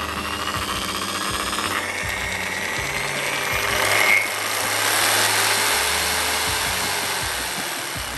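Okatz JS100-QL 750 W top-handle jigsaw running with no load, its blade mechanism buzzing steadily. The pitch and level shift as the speed dial is turned, swelling around the middle and easing off toward the end as the speed is turned down.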